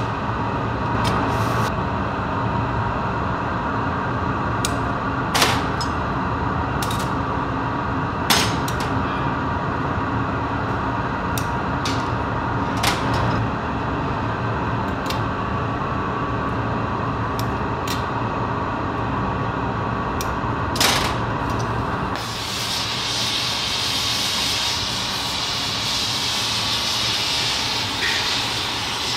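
Steady low workshop roar with a series of sharp metallic clicks and taps of glassworking tools. About 22 seconds in, a gas torch starts hissing loudly as its flame is played on the hot glass.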